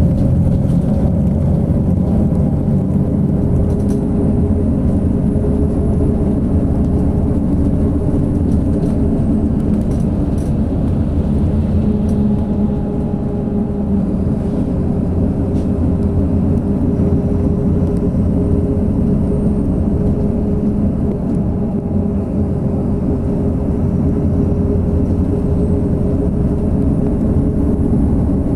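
Rail replacement coach travelling at road speed, heard from inside the cabin: a steady low engine and road rumble with a faint steady hum.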